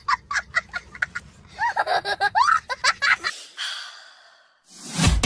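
A young child laughing hard in quick, high-pitched bursts with gasping breaths, trailing off into a breathy hiss. Music with a heavy beat starts near the end.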